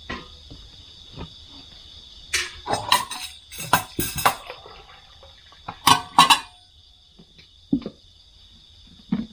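A drink is poured from a thermos jug into plastic mugs in two spells, with light knocks of mugs and jug on the table. Crickets chirp steadily behind.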